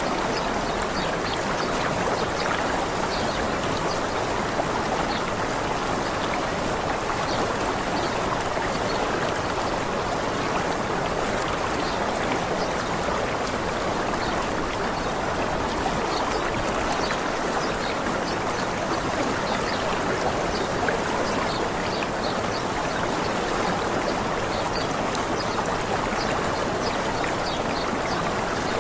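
Running water of a small waterfall, a steady even rush with no change in level, with scattered faint short high ticks over it.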